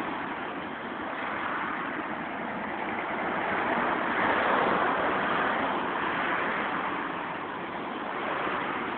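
Road traffic: a steady hiss of car tyres and engines on a busy main road, swelling as a car passes about four to five seconds in.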